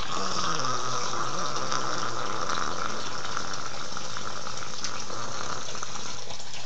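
Steady rush of water from a running tap.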